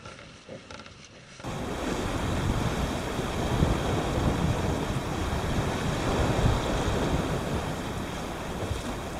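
Wind buffeting the microphone over sea surf on a rocky shore: a steady rushing noise that starts abruptly about a second and a half in, after a quieter stretch with a few faint clicks.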